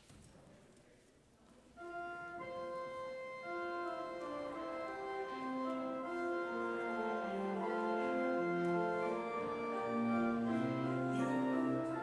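Church organ begins playing about two seconds in: sustained chords with notes that change beneath and above them, held steady without dying away. Before it enters there are only faint room sounds.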